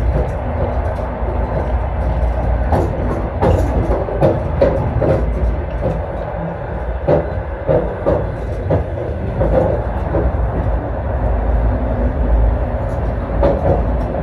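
Trans-Siberian passenger train running, heard from inside the carriage: a steady low rumble of the wheels on the rails with irregular clacks and knocks.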